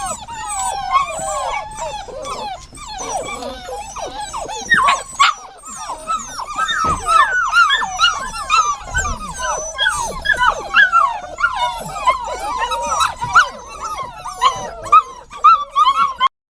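Dogs whining and whimpering, many high whines rising and falling and overlapping one another without pause. The sound cuts out briefly near the end.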